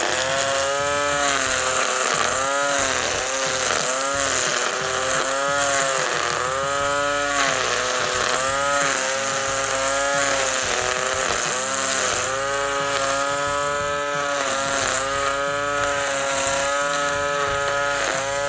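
Ryobi cordless electric string trimmer running as its line cuts grass. Its whine dips in pitch and recovers over and over as the line bites into the grass and frees again.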